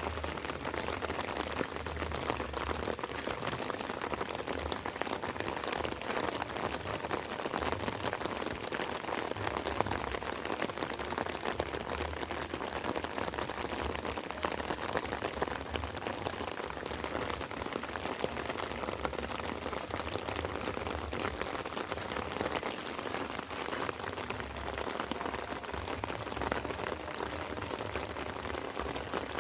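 Light rain falling steadily, many small drops ticking on leaves and ground, with a low rumble that comes and goes underneath.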